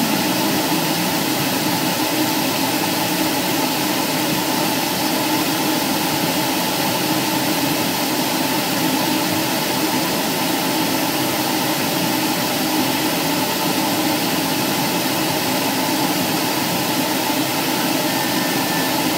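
Aircraft engine and airflow droning steadily in flight, heard from inside the cabin, with no change in pitch or level.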